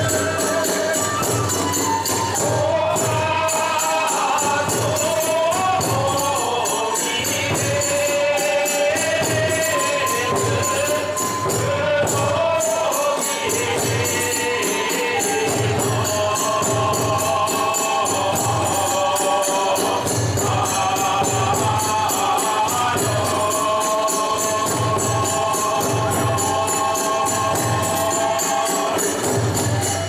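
Iwami kagura accompaniment: a large taiko drum keeps a steady beat under the constant clashing of small hand cymbals (tebyōshi), with a wavering melody line above.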